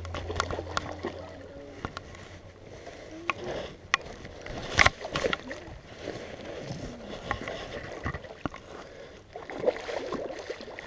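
Close handling noise of a fishing rod and reel rubbing and knocking against the camera: scattered clicks and knocks, one of them loud about five seconds in, with faint voices under them.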